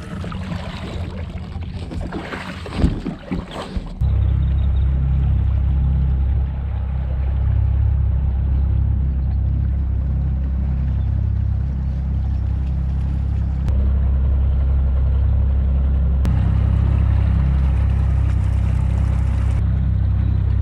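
A boat's motor running steadily while the boat cruises across the water, a loud even drone that starts abruptly about four seconds in. Before it, water splashing with a few sharp knocks.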